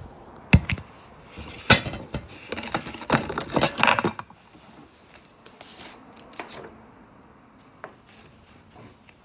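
A quick run of knocks and rattling clatter from handling things, lasting about four seconds, then only a few faint ticks.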